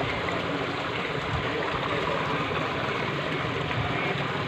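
Steady rush and slosh of water as swimmers wade and splash through a shallow spring-fed pool.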